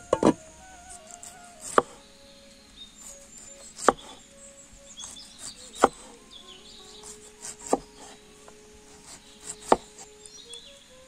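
A double clunk just after the start as a clay lid is set down on a clay pot. Then a kitchen knife cuts pineapple rounds, its blade knocking onto a wooden chopping board five times about two seconds apart, over soft background music with birds chirping.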